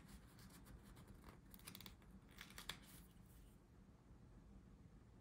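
Faint peeling and crinkling of alphabet stickers being picked off their sheet and handled, a scatter of soft ticks and rustles over the first three seconds or so, then near silence.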